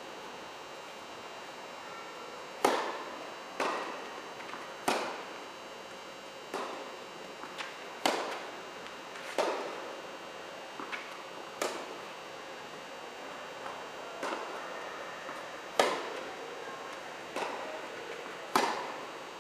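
Tennis rally: sharp cracks of racquets striking the ball, roughly every one to two seconds, with softer knocks between them. Each hit rings on briefly in the large hall.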